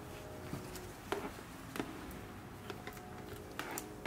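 Light clicks, taps and rustles of a dash cam power cord and plastic interior trim being handled under a car's dashboard as the wire is tucked out of sight, with a faint steady tone underneath.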